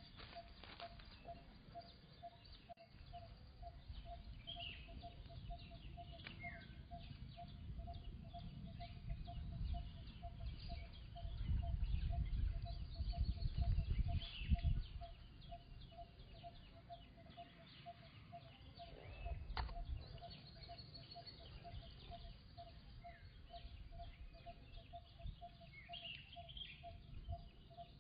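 Scattered short bird chirps over a steady tone pulsing about three times a second, with low rumbling that is loudest in the middle.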